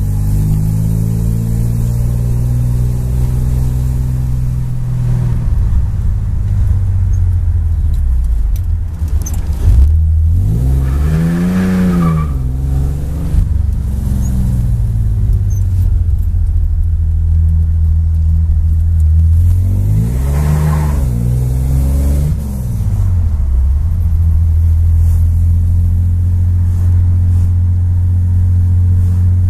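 1973 Chevrolet Opala's 250 cu in (4.1 L) straight-six engine pulling the car along, heard from inside the cabin. It runs steadily, and twice, about ten seconds in and again about twenty seconds in, the revs climb and fall back.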